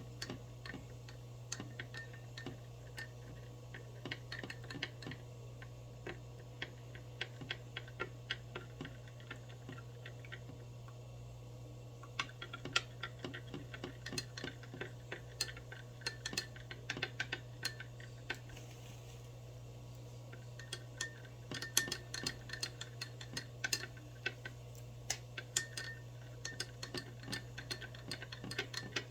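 A metal spoon clinking against a glass in quick runs of light taps as a drink is stirred, the glass giving a faint ring; the taps thin out briefly a few times. A low steady hum lies underneath.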